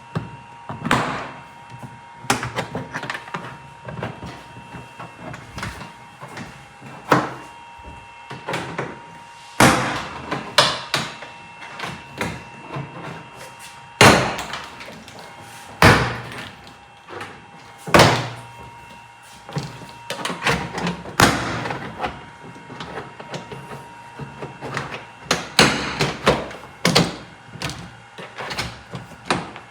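The clips of a Tesla Model 3 trunk-lid plastic trim cover popping loose as the cover is pried off. The sound is a string of sharp plastic snaps and knocks at uneven intervals, with the loudest ones near the middle.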